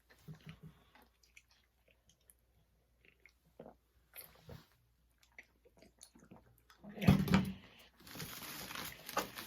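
Chewing and crunching of candy-shelled mini chocolate eggs: scattered faint crunches at first, then a loud burst about seven seconds in and a louder, noisier stretch of chewing to the end.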